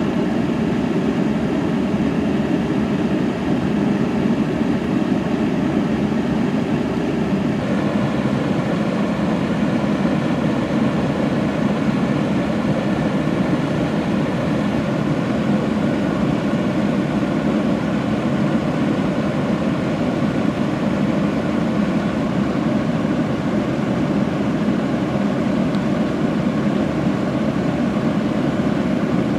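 A steady low rumble with a faint engine-like hum running through it. One hum tone drops out about seven seconds in.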